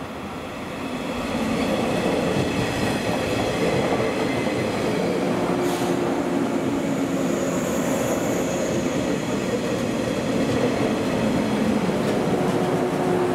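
Seven-car JR 115-series electric multiple unit running past at close range, the train's running noise swelling about a second in and then holding steady, with a steady whine over it.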